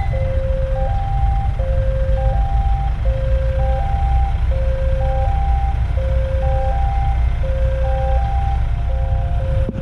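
Indonesian railway level-crossing warning alarm sounding for an approaching train: an electronic chime cycling through three stepped tones, repeating about every one and a half seconds, over a steady low rumble.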